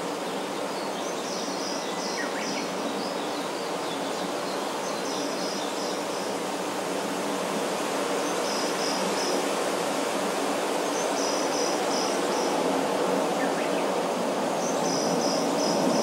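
Forest ambience: a steady low rushing background that grows a little louder toward the end. Over it, short high-pitched chirping phrases of four or five quick notes repeat every few seconds.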